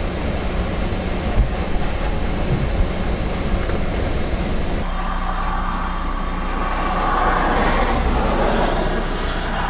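Wind buffeting the microphone: a continuous, uneven low rumble with a hiss above it, changing character about halfway through, and a few soft knocks in the first three seconds.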